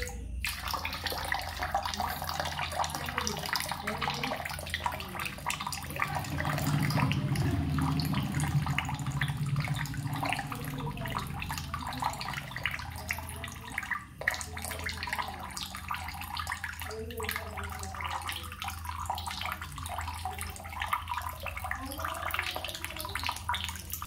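Steady rush of running water, a nature water sound.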